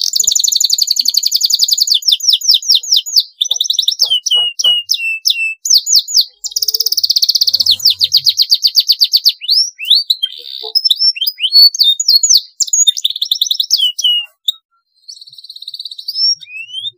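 Domestic canary singing long rolling trills, rapid runs of repeated high notes, the longest in the first two seconds and again about seven seconds in. Between the rolls come single notes that sweep sharply up or down.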